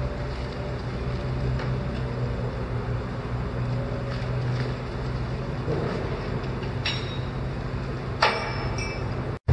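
Heavy diesel engine running steadily with a low hum, with a couple of short knocks near the end.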